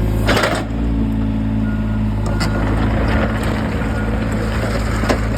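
A large engine running steadily with a deep, even drone, with a few brief knocks over it.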